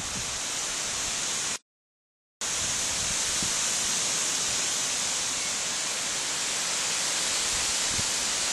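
Steady, even hiss, strongest in the high range, with no distinct events. About one and a half seconds in it cuts to dead silence for under a second, then resumes unchanged.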